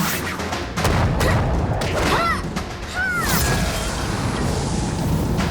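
Cartoon battle sound effects: repeated booms and impacts over a continuous low rumble, with dramatic background music. Two short swooping tones come about two and three seconds in.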